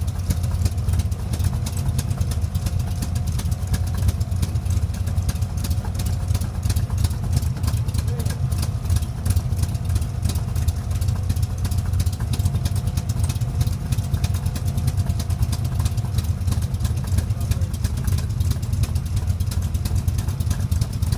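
Chevy V8 engine in a Cobra kit car idling steadily, with an even, rapid exhaust pulse and no change in speed.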